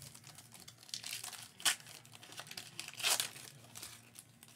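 Foil wrapper of a Panini Select trading-card pack being torn open and crinkled by hand, in irregular short crackles, the sharpest about a second and a half in and another cluster around three seconds.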